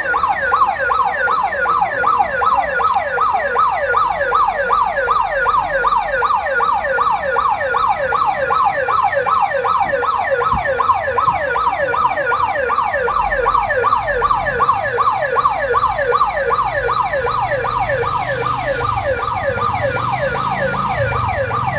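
Electronic siren in a fast yelp: quick falling whoops, about four a second, repeating evenly and loudly. A low engine rumble joins it near the end.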